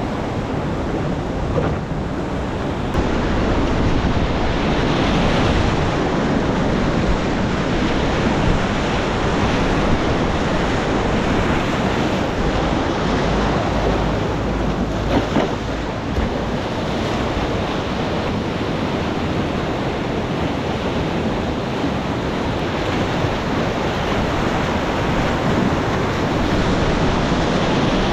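Steady rush of high-water whitewater rapids, with wind buffeting the microphone.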